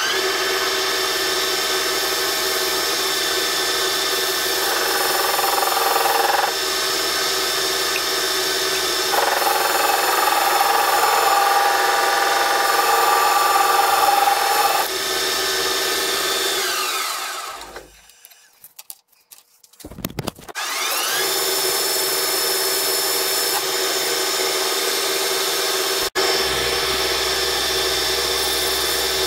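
Metal lathe running with a steady machine whine while a twist drill bores into a spinning steel bushing, the cutting coming through louder twice in the first half. About two thirds through, the lathe winds down to a stop, then starts up again and runs on steadily.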